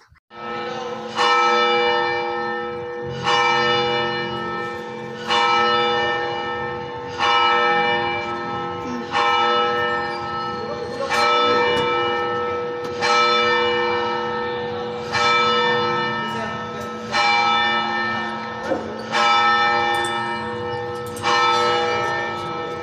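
Church bell tolling slowly, one strike about every two seconds, each note ringing on over a lasting hum. It is rung as a death knell for a parishioner who has died.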